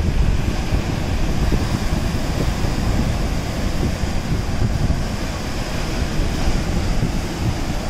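Wind buffeting the microphone in a steady low rumble, over the even wash of sea surf on the rocks.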